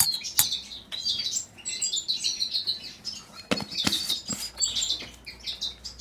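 Small aviary birds, canaries and finches, chirping and twittering continuously, with a few sharp clinks of a metal spoon against a steel mixing bowl, one near the start and two close together just past the middle.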